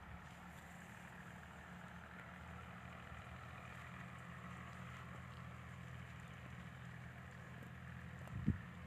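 A faint, steady low engine hum, with a brief thump near the end.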